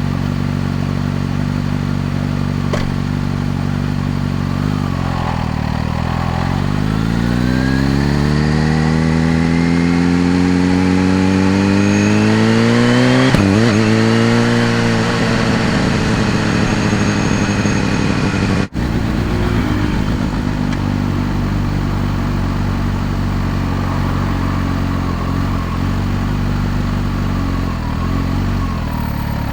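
Kawasaki Z H2's supercharged inline-four engine pulling steadily, then revving up smoothly under acceleration from about six seconds in. The climb breaks off sharply at a gear change about thirteen seconds in, and the engine settles back to a steady, lower running note. The sound cuts out for an instant near nineteen seconds.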